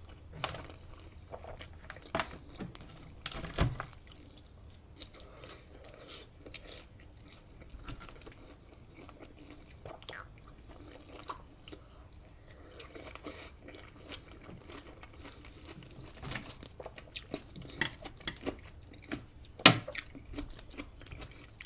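Close-miked chewing and wet mouth sounds of someone eating a cooked English breakfast, with scattered small clicks. There are a couple of sharper clicks, one about three and a half seconds in and the loudest near the end.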